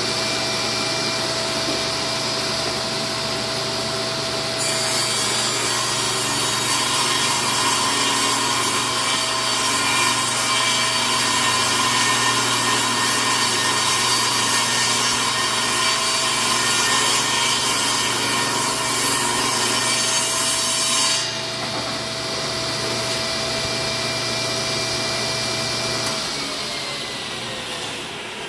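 Power saw cutting through a wooden board for about sixteen seconds, with a steady whine and hum underneath. It then runs free and winds down near the end, its pitch falling.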